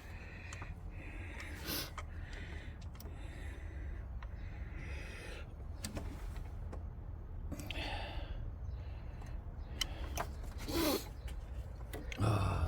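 Scattered light metallic clicks and taps of hand tools and bolts while an engine's timing chain cover is bolted back on, over a low steady background hum.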